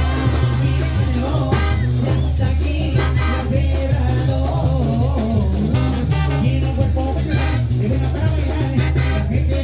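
Mexican banda music: a band playing an upbeat piece over a heavy, steady bass line, with melodic horn lines and regular drum hits.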